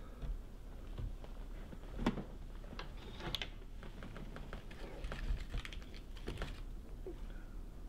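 Scattered light clicks and taps of small objects being handled on a tabletop, with a louder knock about two seconds in.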